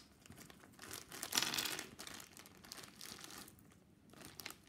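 Thin plastic packaging crinkling as it is crumpled and opened by hand: a red wrapper and a small clear plastic bag of toy parts. It comes in irregular bursts, loudest about a second and a half in, then fainter.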